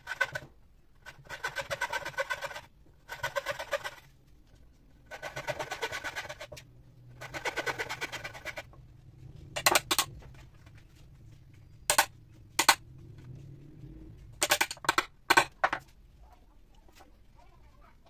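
A small hand saw cutting rubberwood in four bursts of quick strokes, then a hammer striking a wood chisel: about eight sharp blows, two near the middle and a quick run of them later on.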